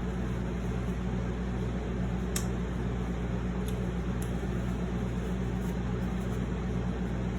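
Steady low hum in a small room, with a couple of faint short clicks.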